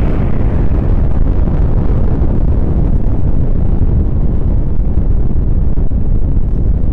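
Loud, steady low rumble of a nuclear explosion's blast rolling on, its higher hiss dying away during the first couple of seconds.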